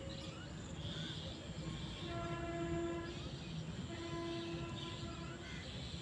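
Background music of slow, sustained tones: the same held note sounds three times, about a second each and a couple of seconds apart, over a low steady hum.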